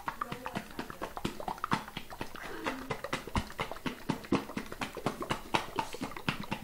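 Glass jar of flaxseed gel with a metal screw-top lid being shaken hard by hand, giving a fast, uneven run of knocks and rattles, several a second.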